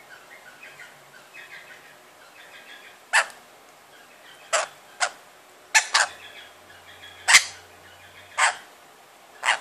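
Rainbow lorikeet chattering softly, then giving about eight short, harsh screeches over the last six seconds.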